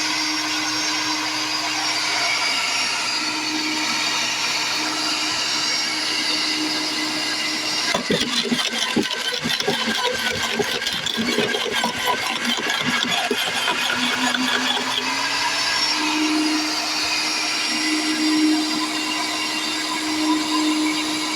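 Sun Joe electric wood chipper running with a steady motor tone. From about eight seconds in, branches fed into it crack and crunch as they are chipped, and the motor's pitch dips under the load before rising back to its free-running tone.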